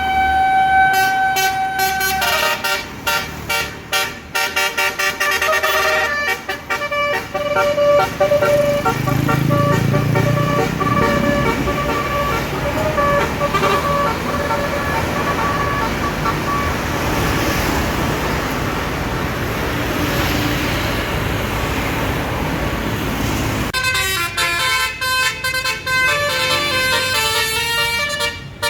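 Tour bus's basuri telolet horn playing a quick melody of stepping notes. In the middle the tune gives way to engine and road noise, and the melody starts up again near the end.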